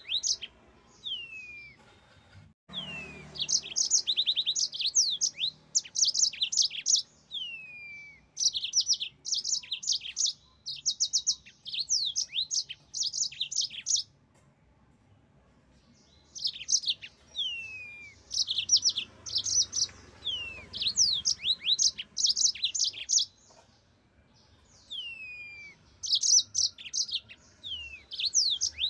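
Yellow-fronted canary (Mozambique canary) singing in bursts of fast, high trills mixed with downward-sliding whistled notes, broken by two pauses of a couple of seconds.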